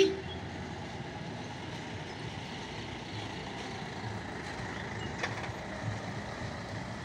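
Light pickup truck's engine running as it drives round a hairpin bend, with a car and motorbikes following: steady traffic noise. A pulsing horn cuts off right at the start, and there is a short click about five seconds in.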